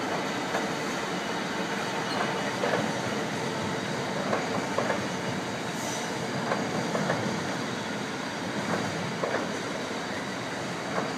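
Freight train of hopper wagons rolling across an old iron arch railway bridge: a steady rumble of wheels with irregular clacks and knocks throughout.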